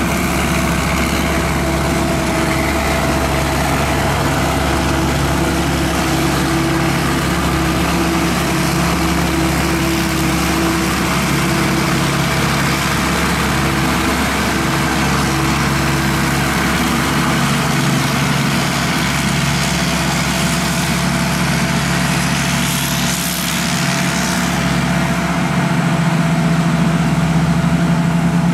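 SAK KM-D combine harvester's 260-horsepower turbocharged engine running steadily, growing slightly louder near the end.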